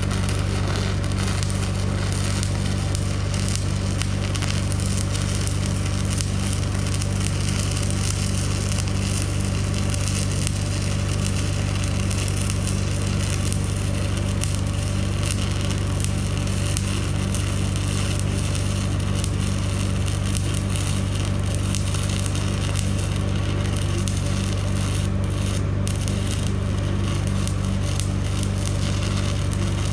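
Stick-welding arc on a steel backhoe dipper stick, crackling steadily without a break, with a steady low hum under it.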